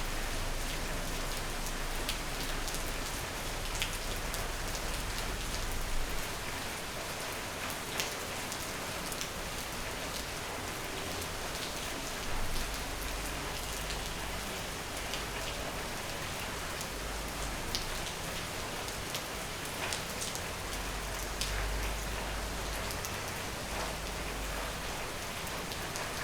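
Steady rain falling and hitting a surface, an even hiss with scattered sharper drop impacts and a low rumble underneath that comes and goes.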